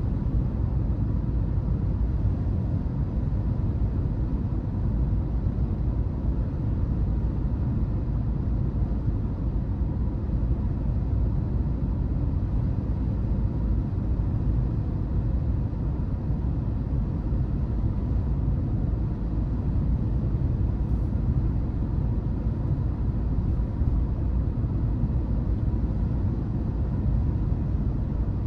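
Steady low rumble of a car driving along a road, engine and tyre noise with no change in pace.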